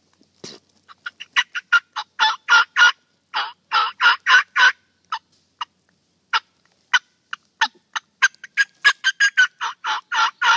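Wild turkey yelping: runs of short notes, several a second, quickening near the end.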